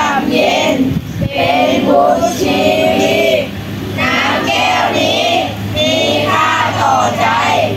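Young novice monks singing together in chorus, a Buddhist song about dharma and forgiveness, in long held phrases over a steady low hum.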